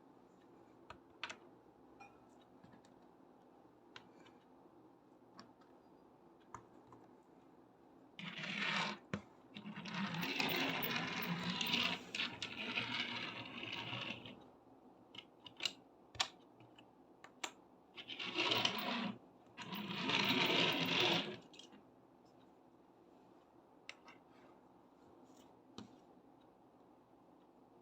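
Blasts of blown air standing in for a strong wind, one lasting several seconds around a third of the way in and a shorter pair past the middle, with scattered light clicks and clatters of domino blocks.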